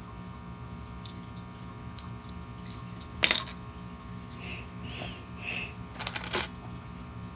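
LEGO bricks being handled and pressed into place: a sharp plastic click about three seconds in and two more just after six seconds, with small handling sounds between, over a steady electrical hum.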